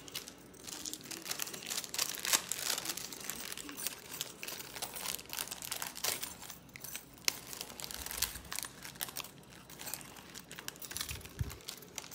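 Packaging crinkling and rustling as it is handled close by: a dense, irregular run of small crackles and clicks.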